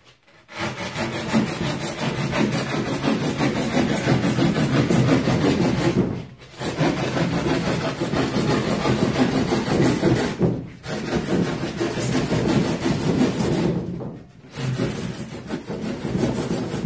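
Hand saw cutting through thick XPS foam insulation board with quick, continuous strokes. The sawing comes in four long runs, with brief pauses about 6, 10 and 14 seconds in.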